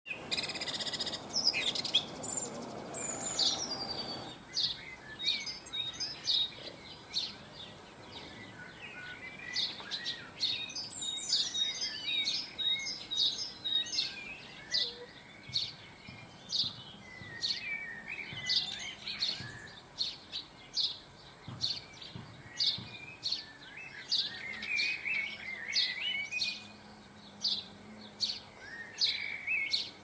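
Small garden songbirds singing and calling, with short high notes repeated about twice a second over softer twittering. A brief rough noise at the start dies away after about four seconds.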